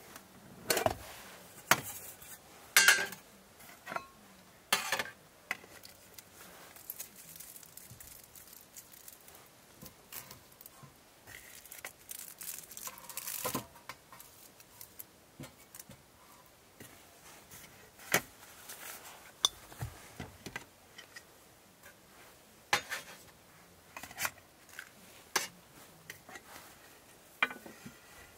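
Camp cookware and utensils being handled: scattered clinks and knocks, with a longer rustling patch about halfway through.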